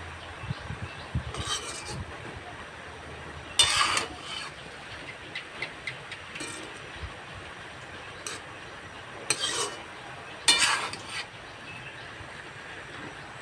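Metal spatula scraping and clattering against a metal wok as beef and bottle gourd leaves are stir-fried, over a steady sizzle. The loudest scrapes come about three and a half seconds in and twice more around nine to eleven seconds.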